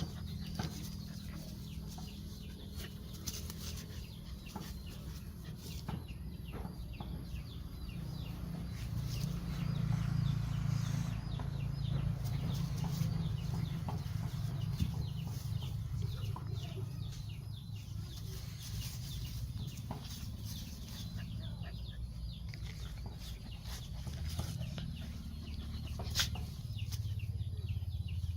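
Chickens clucking over a steady low rumble, with scattered light clicks.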